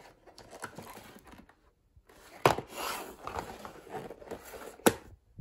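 Cardboard toothpaste multipack box handled and turned over on a wooden floor: rustling and scraping, with two sharp knocks, one about halfway through and one near the end.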